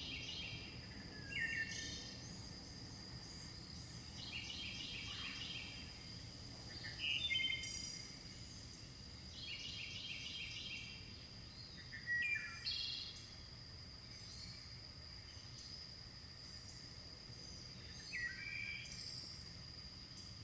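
Wild birds singing, one repeating the same short trilled phrase every few seconds, over a steady, high, continuous insect drone.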